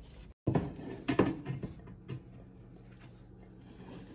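Several light knocks and clunks from a wooden cutting board being handled and set against metal bar clamps, mostly in the first two seconds, over a faint steady hum.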